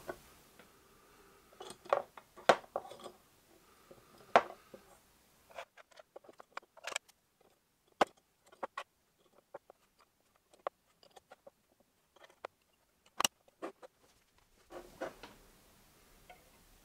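Irregular light clicks and taps of small 3D-printed plastic test strips being handled and slotted into an aluminium extrusion test frame, with a sharper knock about 13 seconds in.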